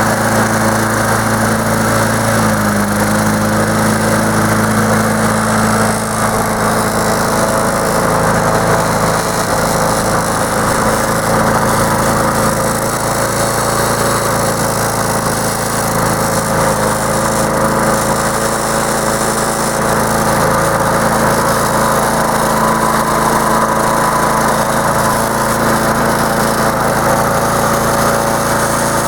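Lawn mower's small gasoline engine running steadily at an even speed.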